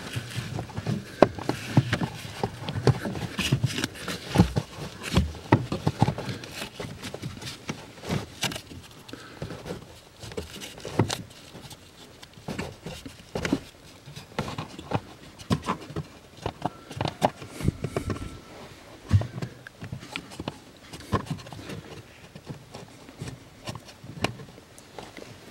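A charcoal cabin air filter being handled and pushed into its plastic housing under a Peugeot 407's dashboard: irregular plastic clicks, knocks and rustling, busiest in the first several seconds, then sparser.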